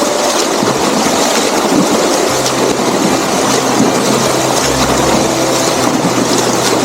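Loud, steady rush of water flowing over a dam.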